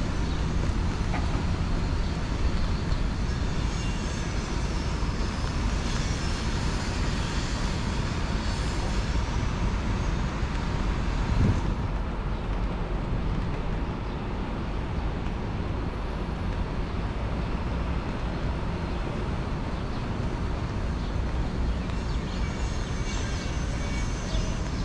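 Steady rumble of city traffic from the streets around the park, with one brief louder swell about eleven seconds in.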